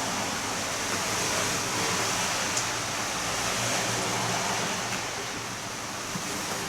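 Heavy rain falling steadily, an even rushing hiss, with a few faint ticks like drips.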